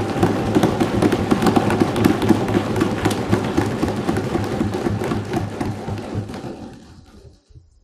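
Audience applause in a hall, a dense run of many claps that fades out near the end.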